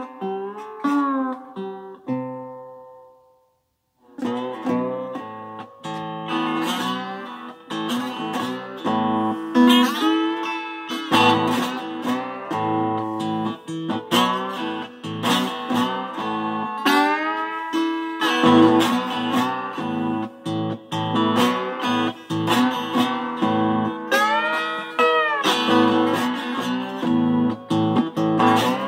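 Electric guitar being played: picked notes and chords, many notes bending up and down in pitch. About two seconds in, a note rings and dies away, and the playing pauses for a moment before starting again.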